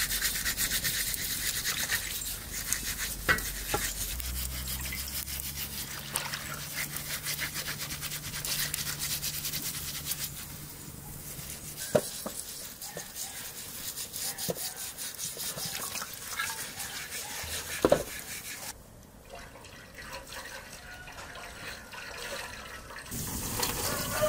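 Quick, rasping scrubbing and scraping strokes on the singed hide of a cow's head, cleaning it, with three sharp knocks along the way. The scrubbing drops away for a few seconds near the end.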